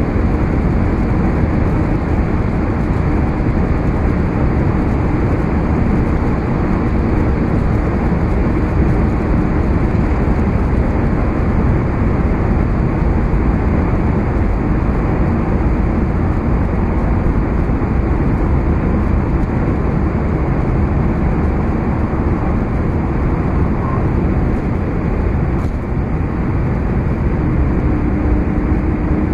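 Interior noise of a BMW 740d (G11) saloon driving at well over 200 km/h: a steady, loud rush of wind and tyre noise over the low drone of the engine. The noise stays even throughout, with a faint steady hum near the start and again near the end.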